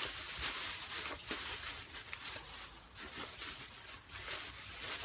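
Plastic bags rustling as clothing and a clear plastic bag are pulled out of a large bag, in irregular bursts of crackly hiss.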